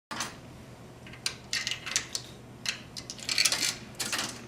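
A series of short, irregular clicks and light metallic rattles, bunched most densely about three and a half seconds in, over a faint steady low hum.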